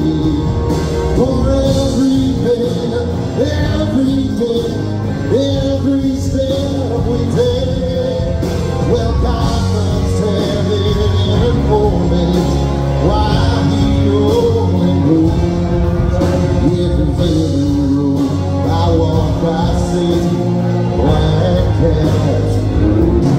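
A live country band playing, with keyboard and bass guitar under a melody line that bends up and down.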